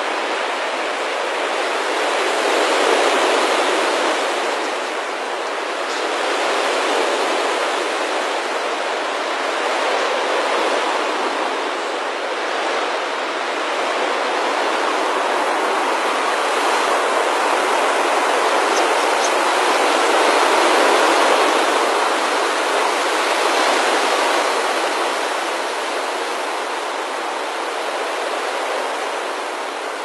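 Dense rushing whoosh of a starling murmuration's massed wingbeats, swelling and easing several times as the flock wheels, and fading toward the end.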